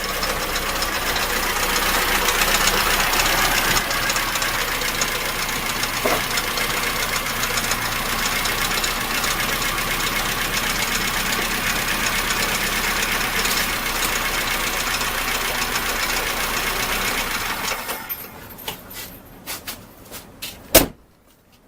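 VAZ engine idling cold with a knock from the front of the engine. The owner suspects loose valve clearances, since the knock seems to fade when warm, or the bearings of the oil-pump drive shaft. The engine stops about 18 seconds in, followed by a few clicks and one sharp knock near the end.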